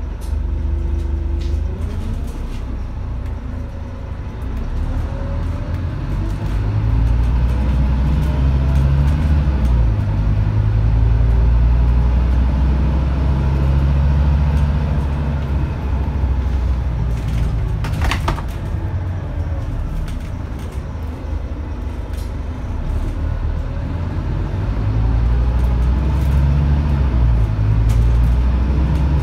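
Scania DC9 five-cylinder diesel of a Scania N230UD double-decker bus, heard from inside the saloon while under way: a deep engine and drivetrain rumble with road noise that builds as the bus pulls, eases off, then builds again near the end. A brief rattle sounds about two-thirds of the way through.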